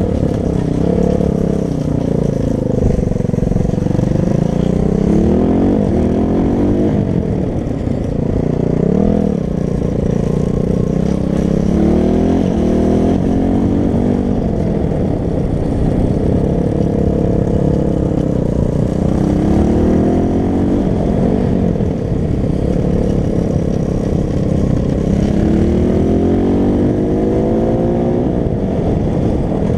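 Loncin 250 cc single-cylinder four-stroke pit bike engine under way, its revs climbing and dropping again and again as the rider accelerates and backs off.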